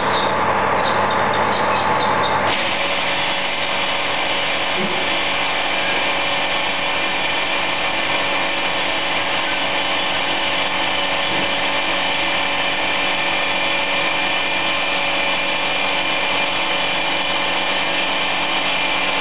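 Electric sausage cutting machine running, a steady machine whine made of several even tones over a noisy hum. About two and a half seconds in, its sound shifts abruptly to a new set of tones and then holds steady.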